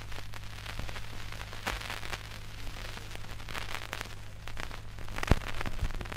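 Vinyl LP playing with no music: surface crackle and scattered clicks over a steady low hum, with one sharp click about five seconds in. This is the stylus riding the run-out groove at the end of the side.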